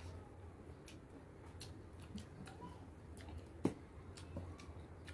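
Faint, scattered wet mouth clicks of someone eating juicy orange segments, with one sharper knock about three and a half seconds in, over a low steady hum.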